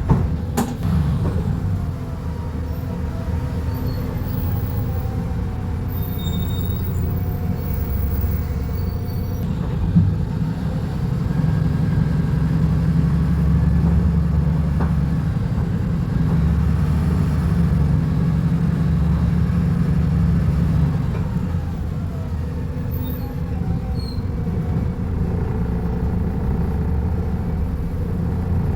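Volvo B290RLE bus engine running with a steady low rumble. It grows louder for several seconds in the middle, then eases off, with a couple of brief knocks.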